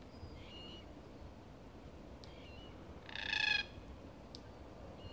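A red-tailed black cockatoo gives one harsh, grating call lasting about half a second, about three seconds in. Smaller birds chirp faintly a few times, over a low hiss of wind.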